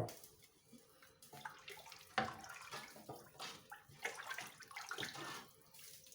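Watery stock sloshing and splashing in a cooking pot in irregular bursts, as extra salt goes into the jollof rice base.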